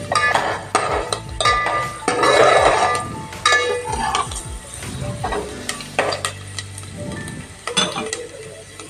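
Metal spoon stirring blanched almonds in hot oil in a metal pot: irregular scrapes and knocks of the spoon on the pot over the sizzle of the frying almonds.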